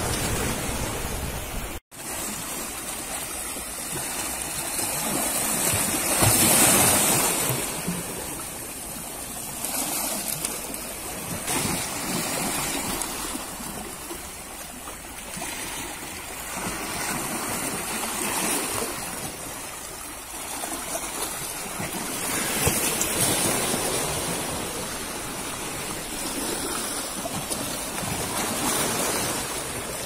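Sea water washing over and draining between the boulders of a rock breakwater, surging and falling away again and again, loudest about six or seven seconds in. There is a brief break in the sound about two seconds in.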